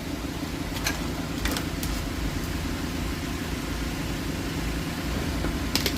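An engine idling steadily, with a few sharp clicks about a second in, at one and a half and two seconds, and near the end.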